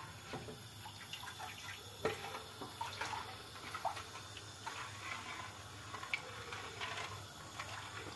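Wooden spoon stirring sugar into water in a large stainless steel pot to dissolve it for syrup: faint sloshing of the liquid with small, irregular knocks and scrapes of the spoon against the pot.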